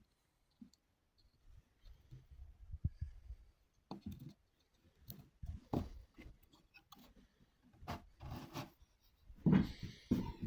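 Wooden puzzle-box panels being handled and fitted together: scattered light knocks and scuffs of wood on wood, coming more often after the first few seconds.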